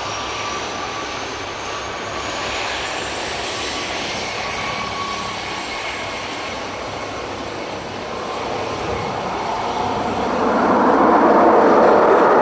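Cessna Citation XL business jet's two turbofan engines running with a steady high whine and rush as it lands, growing louder over the last few seconds.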